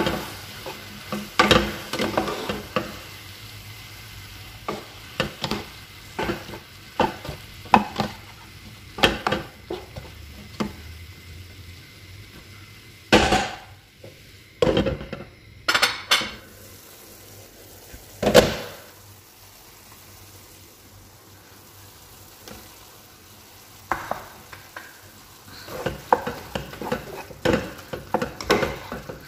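Sliced mushrooms and tomatoes sizzling in a nonstick frying pan as a spatula stirs and scrapes through them, with irregular knocks of the spatula against the pan. Past the middle there is a calmer stretch of plain sizzling before the stirring picks up again.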